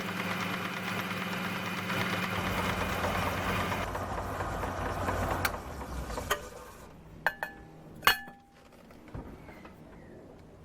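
Mini lathe's motor and belt-and-pulley drive running steadily, changing about four seconds in and running down by about six seconds, with the drive pulley loose on the spindle. Then a few sharp metallic clicks and knocks.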